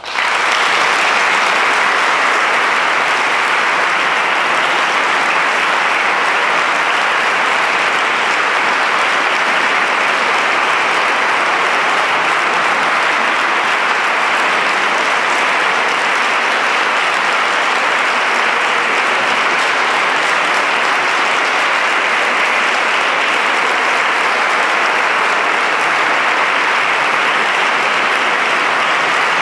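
Large audience applauding: dense clapping that breaks out suddenly at the start and then stays steady.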